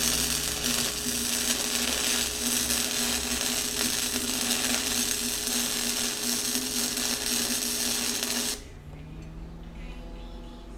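Electric arc welder welding steel bracket bars: a steady loud crackle and hiss with a hum underneath, stopping suddenly about eight and a half seconds in when the arc is broken.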